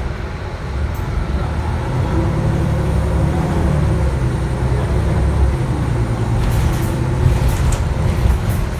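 On board a 2019 Nova LFS CNG city bus under way: the low drone of its engine and drivetrain grows louder about two seconds in as the bus gathers speed. A few light clicks and rattles come near the end.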